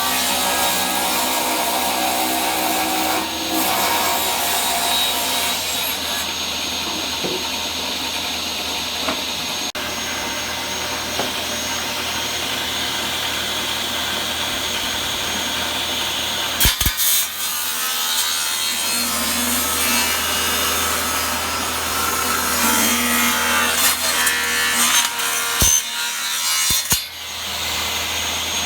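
Table saw running and cutting into the wooden walls of beehive super boxes, a steady loud saw noise, with a few sharp knocks about two-thirds of the way in and again near the end.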